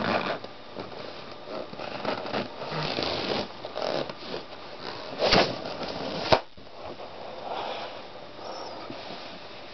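Latex balloons squeaking and rubbing under a socked foot as it presses down on them, then one sharp pop a little over six seconds in as a balloon bursts.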